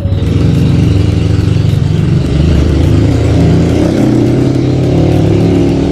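A motor vehicle engine running steadily and loudly, with a low hum that wavers slightly in pitch.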